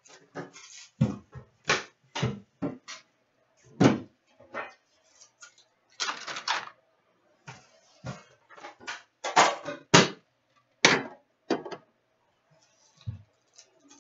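A sealed tin of Upper Deck Series 2 hockey card packs being unwrapped and opened by hand, with irregular crinkling, tearing and rustling of wrapping and foil packs and a few sharp knocks and taps.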